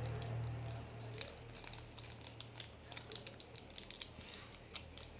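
Metallised plastic biscuit wrapper crinkling in many small irregular crackles as it is rolled tightly around a pencil by hand, over a low hum that dies away about a second in.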